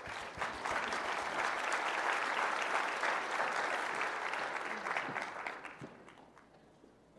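Audience applauding, building up at the start and dying away about six seconds in.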